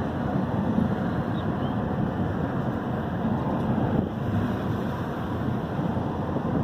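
A car travelling at highway speed: a steady rumble of tyres, engine and wind noise.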